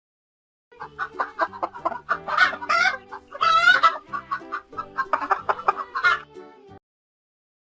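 Chickens clucking: a rapid run of short calls, with one longer drawn-out call a little past the middle.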